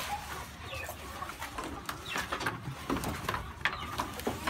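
Goat hooves knocking and clattering irregularly on a slatted wooden pen floor, with soft cooing in the background.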